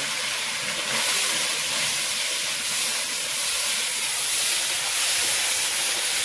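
Small fish frying in hot oil in an iron kadai: a steady, loud sizzling hiss.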